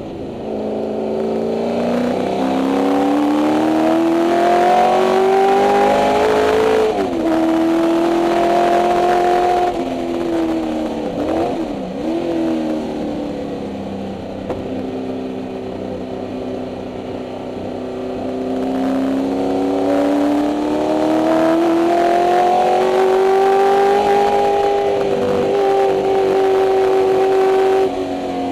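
Ford 289 Windsor V8 of a 1964 Mustang race car at full throttle, heard from inside the cabin. Revs climb steeply, drop suddenly about a quarter of the way in, dip with quick rises and falls near the middle, then climb slowly and hold high before another sudden drop just before the end.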